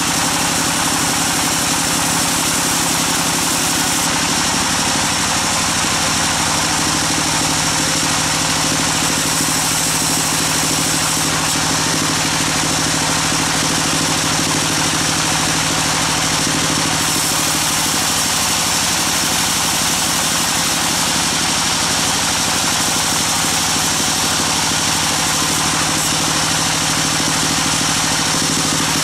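Band sawmill running continuously while its blade saws lengthwise through a large log: a steady, loud hiss of the blade in the wood over a constant motor hum, whose pitch shifts slightly a couple of times.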